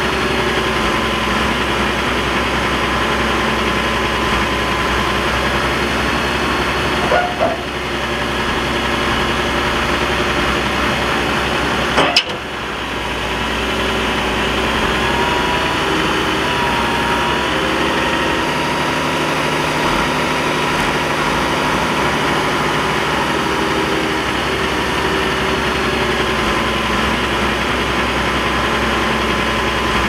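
Diesel engines of a Shantui bulldozer and a bogged dump truck running steadily while the bulldozer pushes the stuck truck from behind. There is a short knock about seven seconds in and a sharp click about twelve seconds in.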